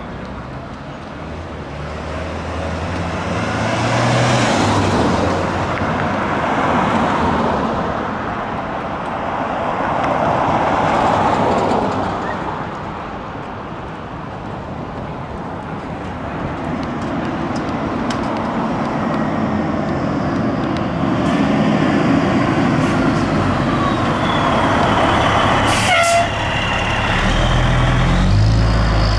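Cars passing on a street, then a fire engine responding with emergency lights approaches and drives by. Near the end a falling siren tone is heard and the engine's rumble grows loud.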